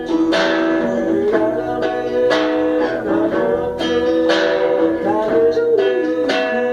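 Guitar music: chords strummed about once a second under a wavering lead melody line, an instrumental passage of a romantic Latin song.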